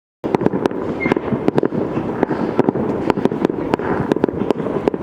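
Fireworks display: a rapid, irregular stream of sharp bangs and crackles over a steady haze of noise, cutting in abruptly after a brief silence.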